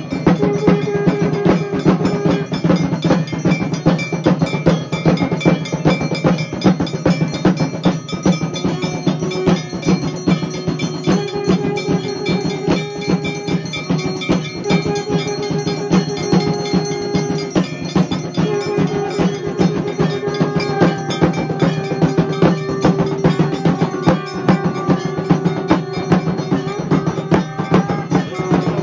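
Temple bells clanging rapidly and without pause for the aarti: a dense run of metallic strikes, several a second, over held ringing tones and a steady hum.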